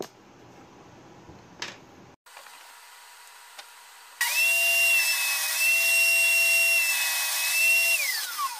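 Table saw motor switched on with a sudden high whine, running at steady speed for about four seconds, then switched off, its pitch falling as the blade winds down near the end.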